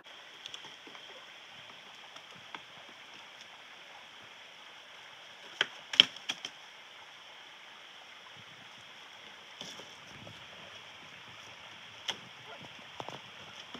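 Creek water running steadily, with a few sharp knocks and clicks over it, the loudest about six seconds in.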